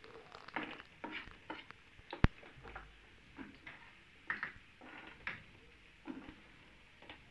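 Garlic pieces frying in hot oil in a metal pan for a tarka, stirred with a metal spoon that scrapes and clicks against the pan at irregular moments. A single sharp knock a little over two seconds in.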